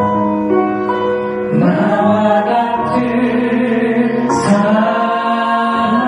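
Wedding music: piano accompaniment with a singing voice that comes in about one and a half seconds in and holds long notes.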